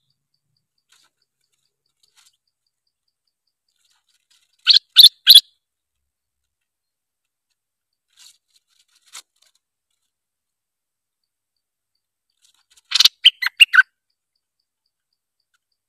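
Stripe-throated bulbul giving short bursts of sharp chirping calls: three loud notes about five seconds in, a couple of faint notes in the middle, and a run of four or five notes near the end, with silence between.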